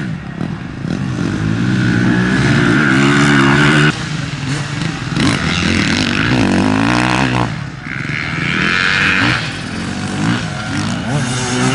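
Enduro motorcycle engines revving hard as riders accelerate past, the pitch rising and falling with throttle and gear changes. The sound breaks off suddenly about four seconds in and another bike's engine follows.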